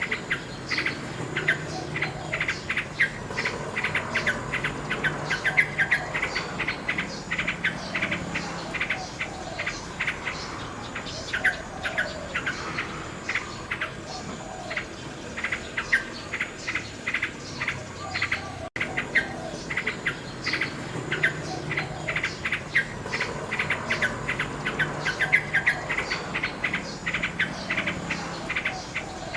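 Nightingale singing continuously in rapid runs of repeated notes and trills, with a brief dropout about two-thirds of the way through.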